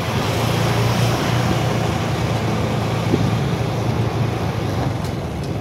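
Motorcycle engine running steadily at low road speed, a constant low hum, with road and wind noise from riding along.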